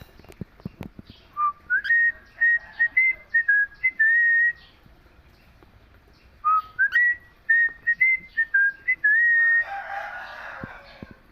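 Cockatiel whistling a learned tune: the same short phrase of stepped whistle notes twice, each ending on a long held note, followed by a brief burst of scratchy chatter near the end.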